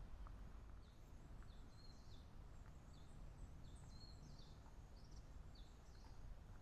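Faint ambience with a small bird giving a string of about ten short, high chirps between about one and six seconds in, over a low steady rumble.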